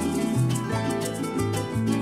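Instrumental music: a quick plucked-string melody over a bass line that changes notes every fraction of a second.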